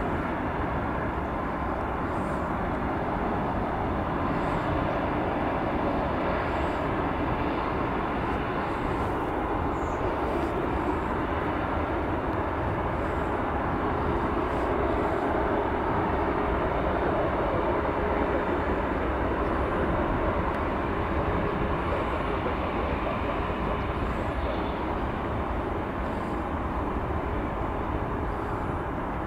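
Jet aircraft engines running as a steady, continuous noise that swells slightly in the middle and eases off near the end.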